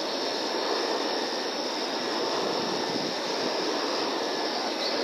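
A steady rushing hiss, with no distinct sound standing out from it.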